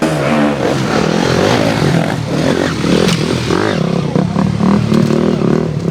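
Enduro motorcycle engine revving hard close by, the throttle rising and falling repeatedly as the bike is worked over the extreme-test obstacles, with a few sharp knocks mixed in.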